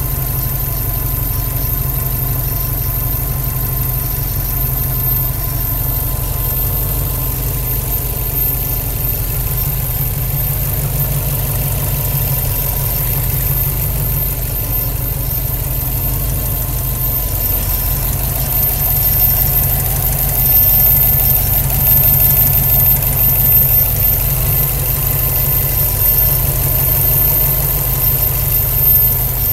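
Subaru WRX's flat-four engine idling steadily with a buzzing noise, getting slightly louder in the second half.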